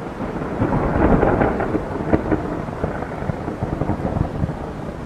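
Thunder: a crackling peal that swells in the first second, peaks about a second and a half in, then rumbles and crackles slowly down, over steady rain.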